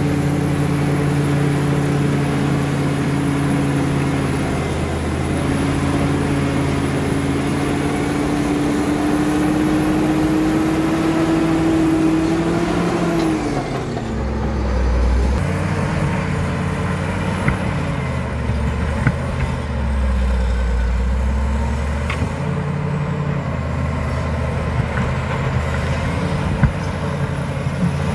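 Caterpillar D7 crawler dozer's diesel engine running hard while the blade pushes a pile of dirt and rock. Its pitch drops about halfway through and then rises and falls as the load changes, with a few sharp knocks in the second half.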